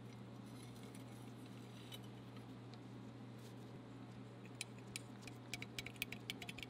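Small metallic clicks and ticks from gloved fingers handling a combination square's cast-iron head and turning its knurled lock nut. They start about four and a half seconds in as a quick, irregular run over a steady low hum.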